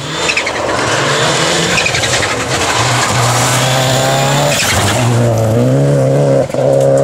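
A rally car racing past on a gravel stage, its engine revving hard at full throttle. The engine note climbs, then steps as the car shifts gear, with a brief dip about six and a half seconds in.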